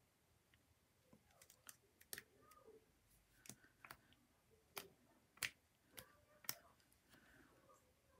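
Faint, irregular clicks and taps of a small plastic acrylic paint bottle being dabbed onto paper laid on a cutting mat, about a dozen in all, the loudest two near the end.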